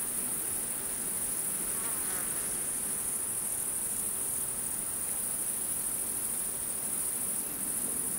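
Crickets trilling steadily in a high-pitched, unbroken drone.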